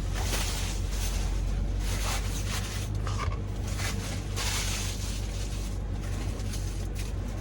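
BMW 335i's twin-turbo inline-six running with a steady low hum, heard from inside the cabin, with an uneven hiss over it.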